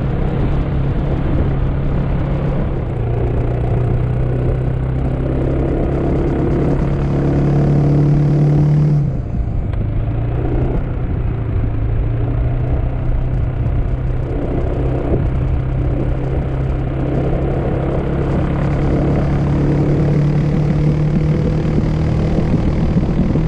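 Motor scooter engine running at road speed, heard from on board over a steady rush of wind. The engine note climbs slowly, breaks off sharply about nine seconds in, then settles at a lower note and climbs a little again near the end.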